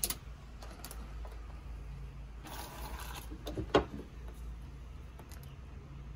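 Handling noise from wiring work with red wire and hand tools: a few light clicks, a short rustle and one sharper knock past the middle, over a low steady hum.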